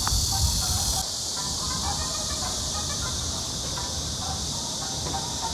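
Steady high-pitched insect chorus of cicadas or crickets, over a low rumble that drops about a second in.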